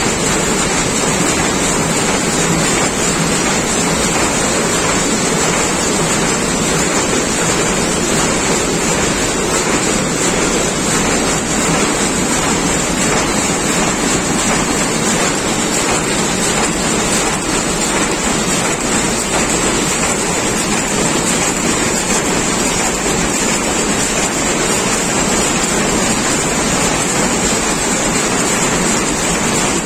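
Rapier weaving loom running at speed: loud, steady, dense mechanical noise without a break.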